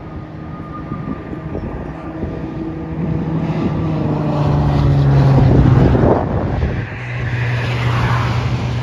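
Jet airliner passing overhead: its engine noise builds to a peak about five or six seconds in, and its pitch drops as it goes by.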